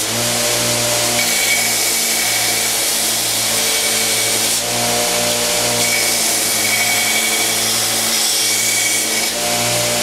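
Homemade 2x72 belt grinder running steadily, its motor humming under the hiss of the sanding belt, as a knife handle is profiled against it.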